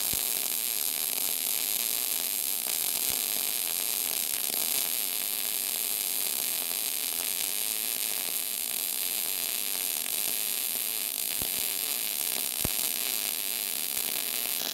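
Wire-feed (MIG) welder arc running a continuous bead on a steel truck frame, a steady hissing crackle without a break.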